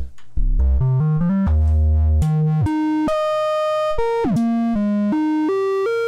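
The #1222 Performance VCO, an analog Eurorack oscillator, plays a run of sustained notes that jump from pitch to pitch every fraction of a second, with one quick downward slide about four seconds in. It is frequency-modulated by a second oscillator tuned an octave above it, which gives a subtle, in-tune FM colour.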